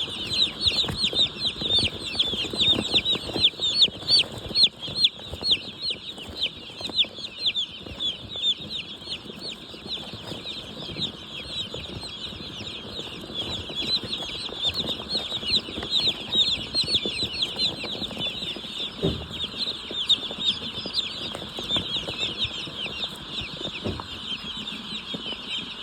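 A large flock of broiler chickens calling all together: a dense, unbroken chorus of short, high-pitched peeps, with some lower clucking underneath.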